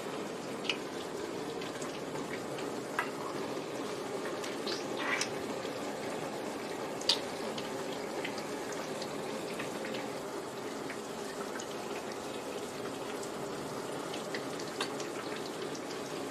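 Steady rain falling, an even hiss with scattered drips and taps of drops.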